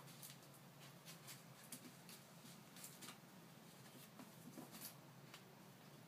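Faint, irregular ticks and scuffs of two kittens' paws and claws and batted toys on a tiled floor while they play, over quiet room tone with a faint low hum.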